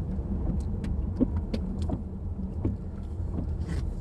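SUV driving on a wet road: a steady low rumble of engine and tyres, with scattered light ticks and clicks throughout.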